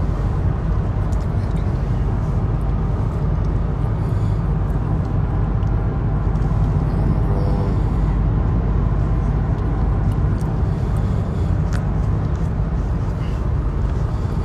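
Steady road and tyre noise with a low drone inside the cabin of a Mercedes-Benz car driving at highway speed.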